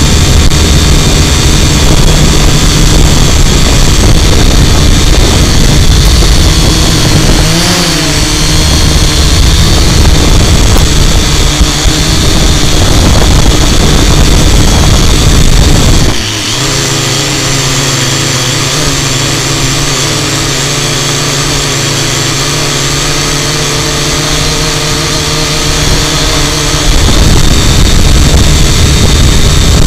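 Quadcopter drone's electric motors and propellers running close to the microphone, a loud continuous hum. The pitch wavers briefly about eight seconds in, and about halfway through the sound drops slightly quieter and steadier for about ten seconds before rising again near the end.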